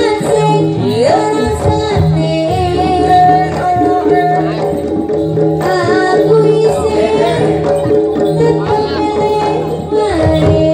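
Live Javanese jaranan accompaniment music: a sustained, ornamented melody line over a repeating low drum pattern, loud and continuous.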